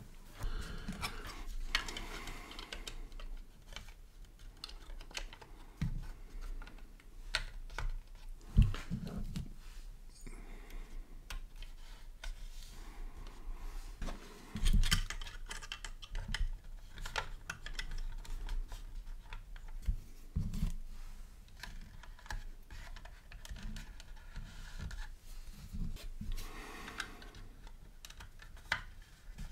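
Plastic parts of a 1/32 scale model aircraft kit being handled and fitted together by hand: scattered light clicks and taps, with a few louder knocks.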